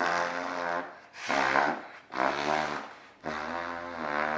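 Fart noise blown through a straw pressed into the armpit: four low buzzing blasts, the last, starting about three seconds in, the longest.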